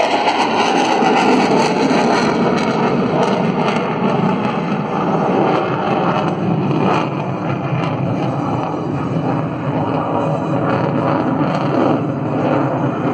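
Jet noise from an F/A-18 Super Hornet's twin turbofan engines: a loud, steady rumble with a constant crackle through it.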